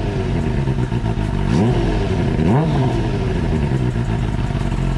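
Four-cylinder motorcycle engine idling, with two quick throttle blips about a second and a half and two and a half seconds in, each rising and falling straight back to a steady idle.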